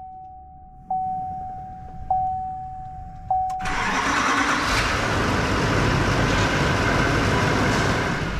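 A truck's warning chime sounds at even spacing, about once every second and a quarter, then the 2018 Duramax 6.6 L V8 turbo-diesel starts about three and a half seconds in and settles into a steady idle. It is the first start after a turbo replacement with the cab lifted off and refitted.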